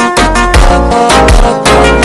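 Electronic music with a steady, fast beat: deep bass hits that slide down in pitch, sharp percussion, and a melody of pitched notes.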